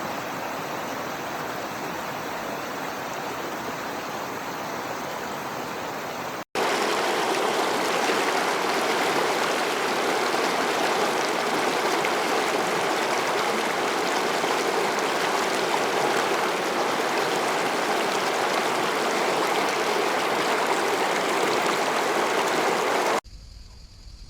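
Rushing water of a waterfall, a steady even noise. It breaks off for an instant about six seconds in and comes back louder, then near the end drops suddenly to a much quieter sound.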